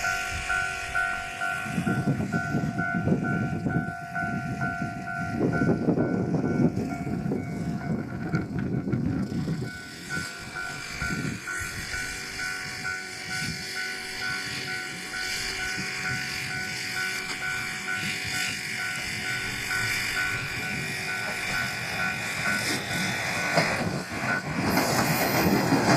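A diesel railcar passes over a level crossing, its wheels rumbling and clattering, loudest in the first ten seconds. A level-crossing warning bell rings steadily over it and stops near the end, when a louder hiss rises.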